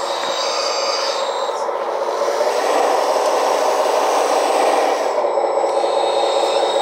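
Radio-controlled scale Komatsu WA470 wheel loader driving on a concrete floor with a load of pipes on its forks: a steady mechanical running noise that grows louder about two and a half seconds in.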